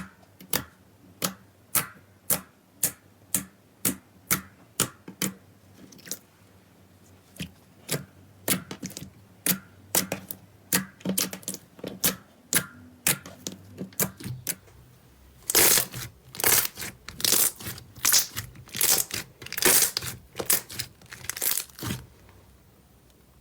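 Slime being pressed and worked by hand, giving a steady run of sharp pops about one and a half a second, then denser crackling and, later, louder crunchy squelching bursts that stop shortly before the end.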